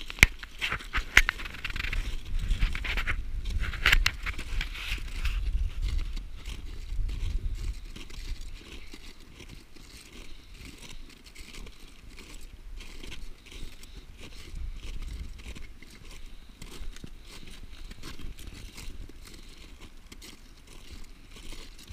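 Crampon footsteps crunching and scraping on glacier ice, with a few sharp clicks in the first four seconds. A low rumble of wind or handling on the microphone is strong through the first several seconds, then eases off.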